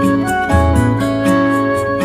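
Background music: an instrumental track with guitar and keyboard over a steady beat.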